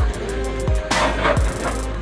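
Background music with a steady beat: deep bass hits that slide down in pitch, over quick ticking hi-hats.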